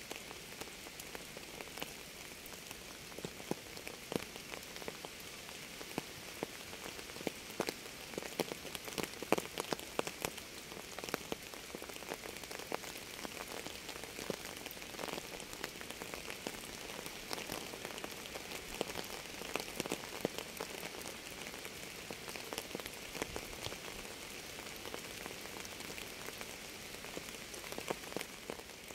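Rain falling steadily on a surface: an even hiss with many separate drops striking and ticking at irregular moments.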